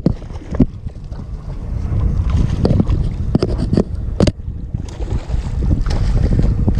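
Wind buffeting the microphone aboard a small boat at sea, a low rumble that grows louder about two seconds in, with scattered sharp knocks and clicks.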